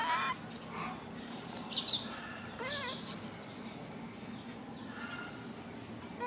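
Baby macaque crying in short, wavering, high-pitched whimpers, repeated several times, with a louder, shriller burst about two seconds in.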